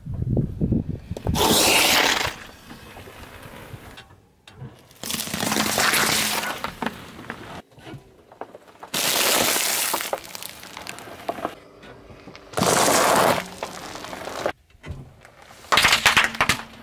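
Car tyre crushing a run of small objects (a plastic slime pot, a bag of wafer biscuits, a heap of laundry detergent pods), each a loud crunching, crackling burst about a second long, five in all a few seconds apart.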